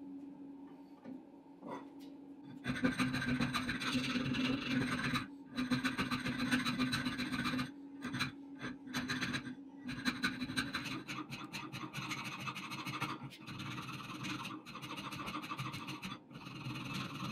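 Hand file rasping back and forth through the eye of a steel hammer head held in a vise, repeated strokes starting about three seconds in, with brief pauses between runs of strokes.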